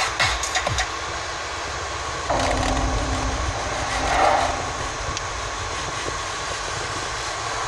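Steady rushing noise inside a Mercedes car cabin, with no music playing, while the stereo's buttons are pressed; a few light clicks in the first second.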